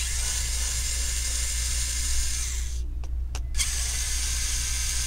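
Pen-style electric screwdriver whirring as it backs out the captive screws holding a laptop's CPU heatsink and fan. It runs steadily, stops with a click a little under three seconds in, then runs again.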